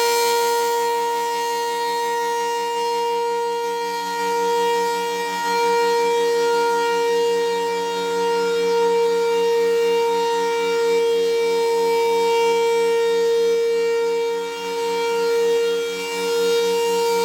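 Federal Signal Thunderbolt 1000 rotating tornado siren sounding its steady alert tone at full pitch during a siren test. The loudness swells and dips slowly as the horn turns.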